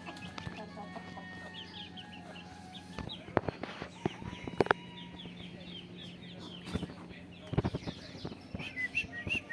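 Chickens clucking, with many short, high chirps repeated in quick runs and a few sharp knocks in between.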